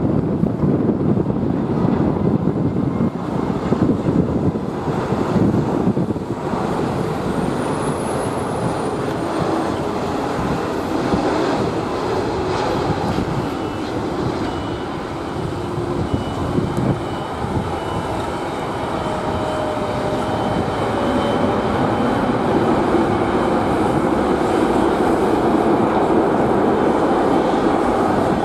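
Airbus A330-300 airliner's jet engines through final approach, touchdown and rollout on the runway: a steady rushing noise that grows louder over the last several seconds.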